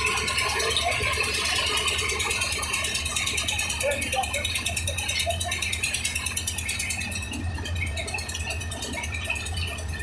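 Lift concrete mixer machines running at a building site: a steady low drone with a fast, even rattle, and workers' voices mixed in.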